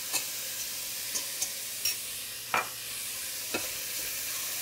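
Cubes of beef and pork sizzling as they sear in clarified butter in a stainless steel pot, with a steady high hiss. The meat is being stirred: a utensil knocks against the pot several times, the loudest knock about two and a half seconds in.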